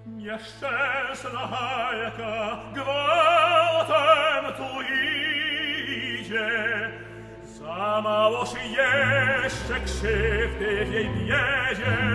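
Operatic tenor singing phrases with a wide vibrato over an orchestra, with short breaks between phrases; low orchestral notes swell near the end.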